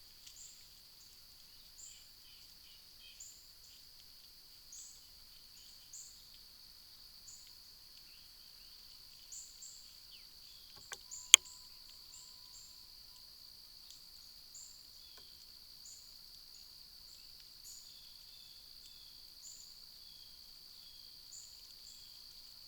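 Outdoor insect chorus: a steady high drone with short chirps every second or so. A single sharp click about halfway through is the loudest sound.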